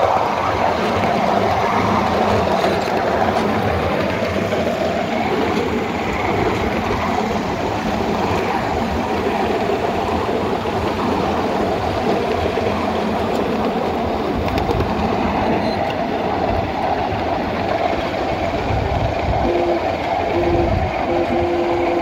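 A 7½-inch gauge miniature riding train rolling along its track: a steady rumble of small steel wheels on the rails. Near the end come a few short tones, each holding two notes at once.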